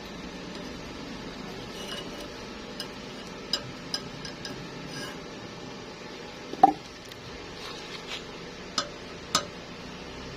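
Metal objects clinking and knocking together several times, the loudest a ringing clink about two-thirds of the way through, over a steady machine hum.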